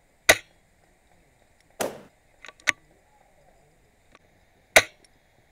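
MB03 spring-powered bolt-action airsoft sniper rifle fired twice, a sharp snap just after the start and another near the end. Between the shots the bolt is worked: a short rasp, then two clicks.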